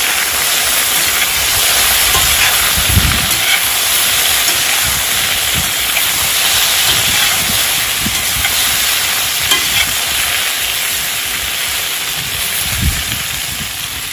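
Diced potatoes sizzling steadily in hot fat in a cast-iron kazan, stirred and turned with a metal spatula, with a few soft knocks against the pot.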